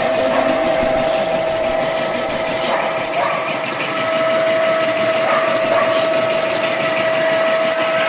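Milling machine's end mill cutting an adjusting slot into a metal wood-chipper knife. The spindle runs and the cutter chews steadily through the metal, with a constant tone held over the cutting noise.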